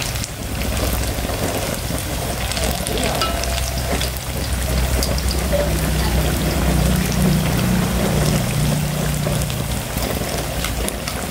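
Battered banana pieces deep-frying in a wok of hot oil: a steady sizzle with many small crackling pops.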